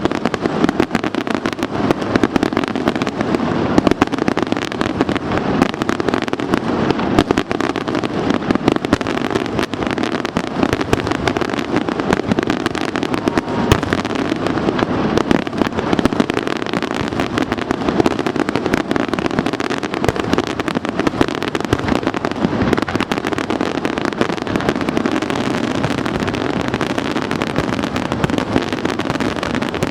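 Fireworks in a dense, unbroken barrage: rapid bangs and crackling, many a second, with no pause.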